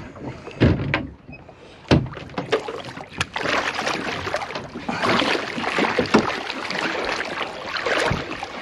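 A large hooked fish thrashing at the surface against a boat's hull, with heavy water splashing from about three and a half seconds in; a few sharp thumps come in the first two seconds.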